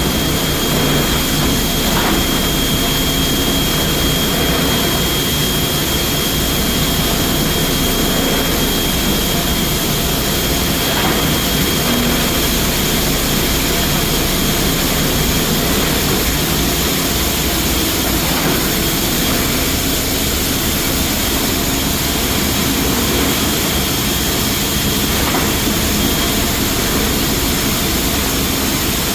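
Rice mill and packing-line machinery running steadily, a loud constant din with a thin high whine over it and a few faint knocks.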